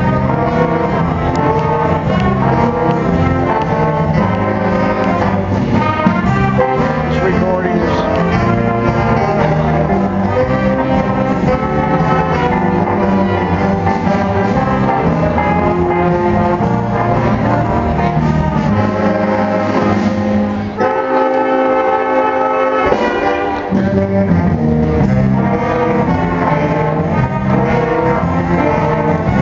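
Big-band jazz ensemble playing: saxophones, trumpets and trombones over a rhythm section. About two-thirds of the way in, the low end drops out for about two seconds while the horns hold a chord, then the full band comes back in.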